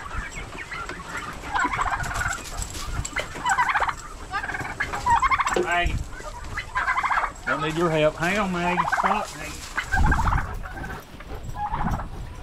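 Domestic turkeys gobbling over and over, short rattling gobbles following one another throughout, with a lower-pitched call about eight seconds in.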